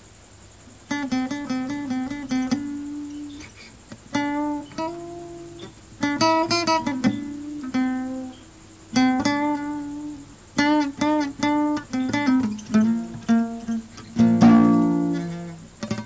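Acoustic guitar music, plucked notes and chords, starting about a second in.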